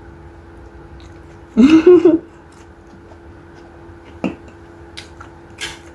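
Quiet eating sounds: a few soft clicks of a fork on food and plate and faint chewing of noodles and boiled egg, over a faint steady hum. A short voiced sound, a brief word or hum from the eater, stands out about a second and a half in.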